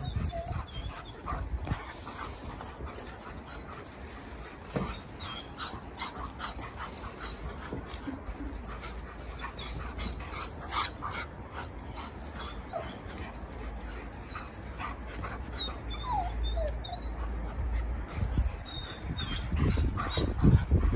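German shepherd dogs playing: a few brief whimpers and yips among scattered scuffles and knocks, over a low rumble that grows louder near the end.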